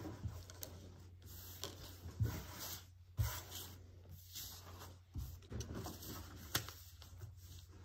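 Quiet handling noises on a tabletop: puzzle pieces, a design card and papers being gathered and set down, with several soft knocks and rustles over a low steady hum.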